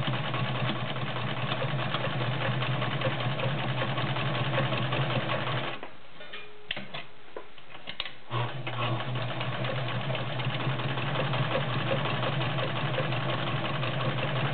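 Vintage Morse sewing machine running at a steady speed, stitching through layers of garment leather. It stops about six seconds in, a few clicks follow, and it starts up again a couple of seconds later and runs on.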